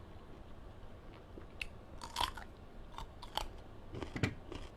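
Close-up chewing and biting of blanched blood cockles, wet and crunchy, with a few sharper crunches and clicks about two, three and a half and four seconds in.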